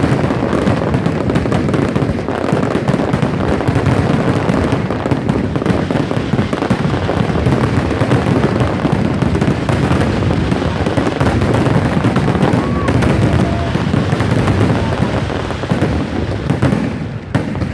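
Aerial fireworks display: a dense, continuous barrage of bursts and rapid crackling over a low rumble, easing off near the end.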